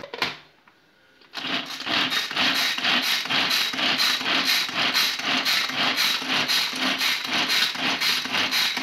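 Pull-cord manual food chopper being worked: the cord is yanked over and over, spinning the blades with a rhythmic whirring and rattling as they chop onion pieces inside the plastic-lidded bowl. The pulling starts about a second and a half in, after a short pause.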